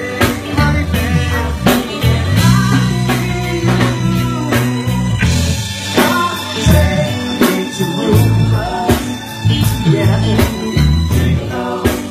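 Live band playing a song with drum kit, bass, keyboard and electric guitar, with a singer's voice, steady drum hits over a heavy bass line.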